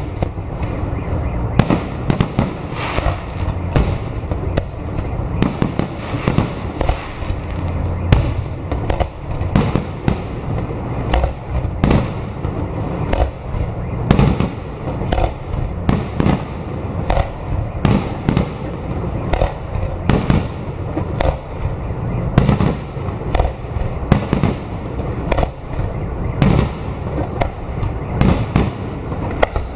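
Fireworks display: aerial shells bursting in quick succession, more than one sharp bang a second, over a continuous low rumble.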